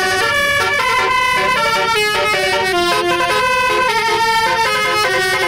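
Telolet bus horn playing a quick tune: steady horn notes that step up and down every quarter to half second, several sounding together.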